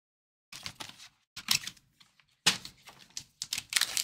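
Trading card packaging being opened by hand: several short bursts of rustling, crinkling and scraping as a box is opened and a foil pack is slit with a blade.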